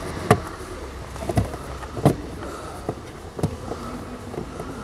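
Plastic cabin-filter cover under a car's dashboard being pushed and knocked into place by hand: four sharp plastic knocks at uneven intervals, with fainter taps and rustles between.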